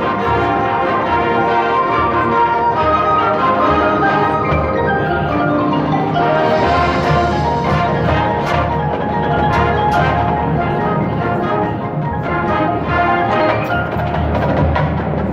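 High school marching band playing its competition show, with the front ensemble's marimbas and other mallet percussion to the fore, and a few sharp percussion hits in the second half.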